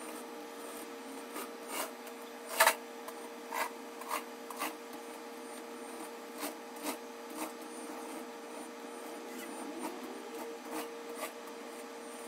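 A quiet steady hum with a dozen or so scattered short clicks at uneven intervals, the loudest about two and a half seconds in.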